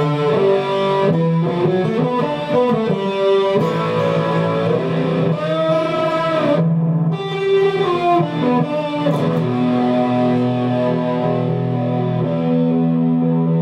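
Guitar-led music, likely electric guitar: a run of changing melodic notes, then settling into long held notes over a sustained low note in the second half.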